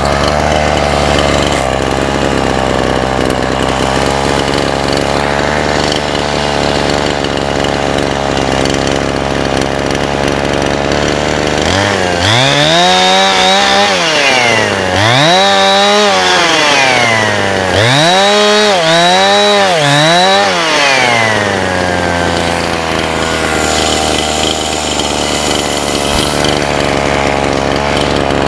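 Petrol two-stroke chainsaw, freshly started, idling steadily. About halfway through it is revved up four times in quick succession, each rev rising and falling back, before settling to idle again.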